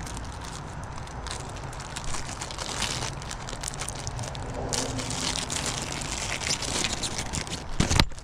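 Small clear plastic hardware bag crinkling and rustling as it is handled, with a louder crinkle just before the end.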